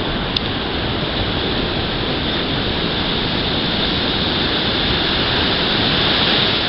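Steady rushing noise of sea surf and wind, even and unbroken.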